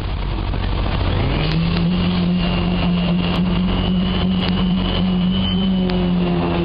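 Heavy machinery running steadily: a deep mechanical hum that rises in pitch about a second in and then holds, with scattered light clicks and knocks.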